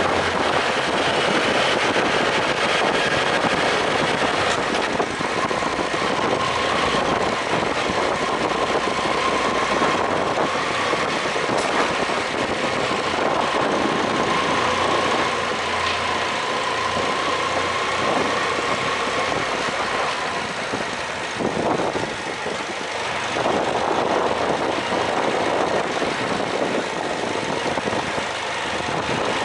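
BMW F800GS motorcycle's parallel-twin engine running steadily as the bike rides through a rough rock-cut tunnel, its pitch wavering slightly with the throttle.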